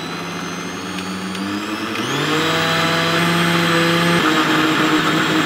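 Countertop blender motor running, blending eggs, oats and bananas into pancake batter. The motor's pitch and loudness climb about two seconds in, and the pitch shifts again just after four seconds.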